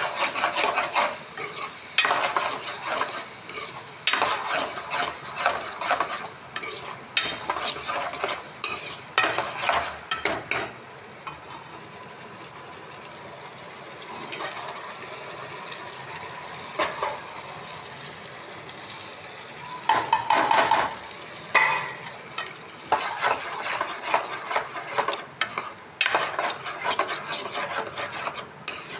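A spatula scraping and stirring food in a sizzling frying pan, in runs of quick strokes. About a third of the way in the stirring stops for several seconds, leaving only the steady sizzle, then starts again.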